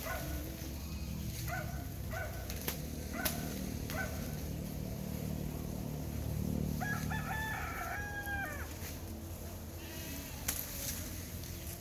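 Rooster crowing once, about seven seconds in, the last note long and held. Before it come a few short calls from the fowl and some sharp knocks, over a steady low rumble.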